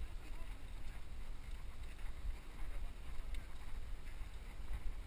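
Wind rumbling on a helmet-mounted camera's microphone as a mountain bike rides over grass, with a few faint clicks from the bike.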